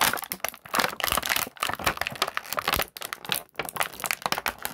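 Clear plastic blister tray of an action-figure package crinkling and crackling as it is handled and pulled apart, in a dense run of quick sharp crackles.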